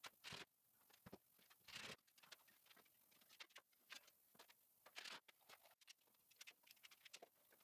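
Faint, irregular clicking and rustling: many short, scattered light knocks and brushes at uneven spacing.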